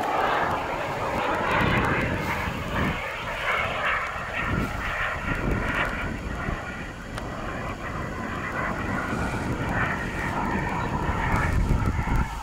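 Model jet's P160 turbine heard from the ground as the F-5E flies past high overhead, a steady hissing whoosh at reduced throttle, over an irregular low rumble.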